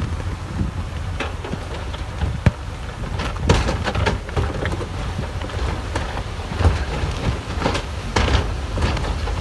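Heavy earthmoving machinery working: a steady low diesel rumble with frequent irregular metallic clanks and knocks.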